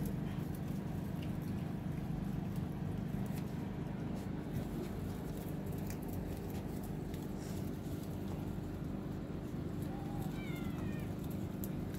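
A steady low hum, and near the end a cat gives one short meow that falls in pitch.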